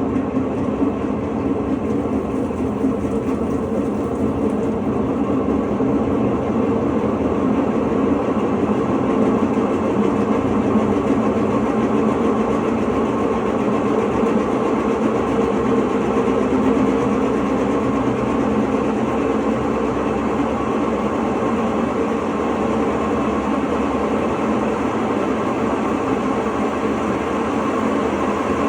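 Electrolux LTE09 washing machine in its intermediate spin, the drum bearing roaring with a steady, continuous rumble: the sign of a bad bearing.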